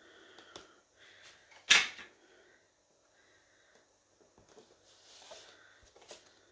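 Handling of a scrapbook album's paper pages and plastic sleeves: soft rustling and small clicks, with one sharp knock a little under two seconds in.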